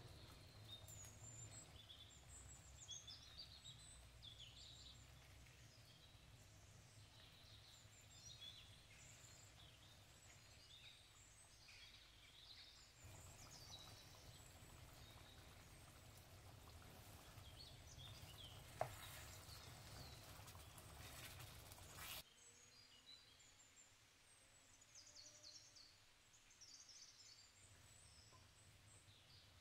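Near silence: faint room tone with a low hum and scattered faint high chirps. There is a single sharp click about two-thirds of the way through, and the hum drops away a few seconds later.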